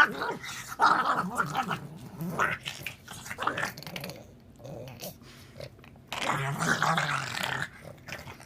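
Pug making goofy vocal noises in irregular short bursts, with a longer, louder stretch about six seconds in.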